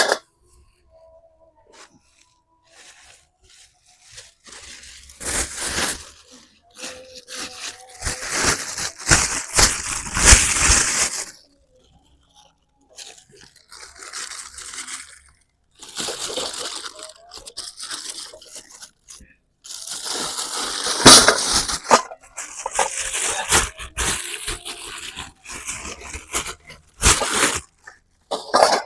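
Irregular crunching and rustling in clusters lasting a few seconds each, with short pauses between them.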